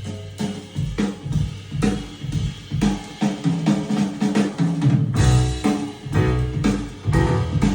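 Jazz record playing through a pair of Cabasse Minorca MC40 bookshelf speakers: a drum kit with kick and snare keeps a steady beat under bass and other instruments.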